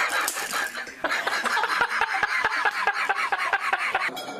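A baby laughing in a long run of quick, rhythmic bursts, about six a second.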